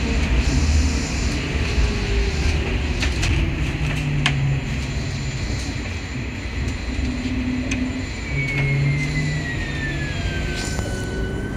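Cabin sound of a trolley bus under way: a steady low rumble with scattered sharp clicks and rattles. From about eight seconds in, the electric drive's high whine slides steadily down in pitch.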